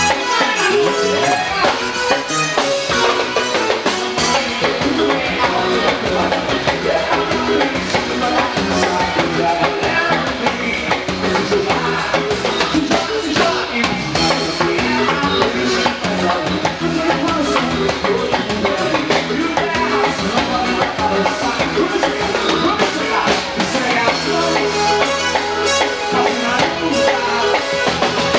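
Live band playing up-tempo dance music, led by a drum kit with an electric bass.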